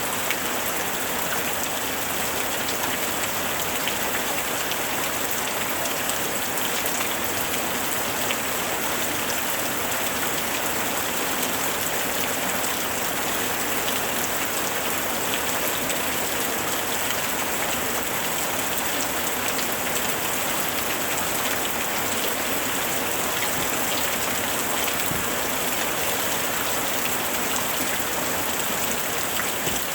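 Steady rain falling, with a dense patter of individual drops hitting a surface.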